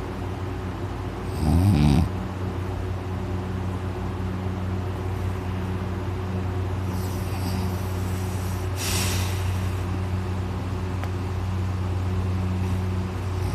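A person in deep sleep snoring loudly, with a loud rattling snort about a second and a half in and a long noisy breath around nine seconds.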